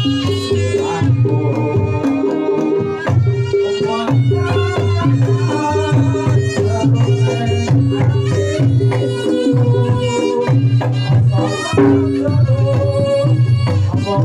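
Reog Ponorogo music (tabuhan reog): kendang drums beat a brisk, steady rhythm under repeating pitched gong tones and a melody line.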